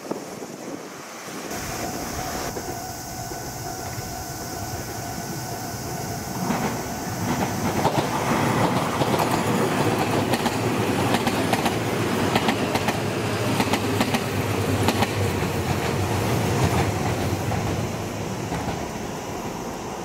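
Meitetsu 300-series electric commuter train passing close by, its wheels clacking over the rail joints. It builds up about six seconds in, is loudest through the middle, and fades near the end.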